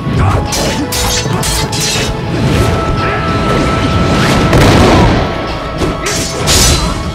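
Film fight-scene soundtrack: a music score with held tones under a rapid string of punchy hit and swish sound effects from a close-quarters baton-and-blade fight. The hits are densest and loudest a little past the middle.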